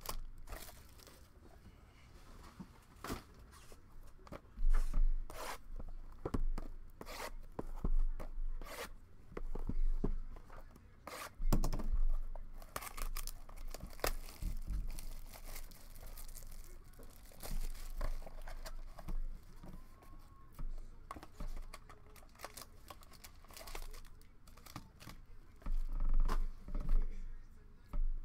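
Foil trading-card packs and cardboard hobby boxes being handled on a table. Irregular crinkling, rustling and tearing of the wrapping, with several dull thumps.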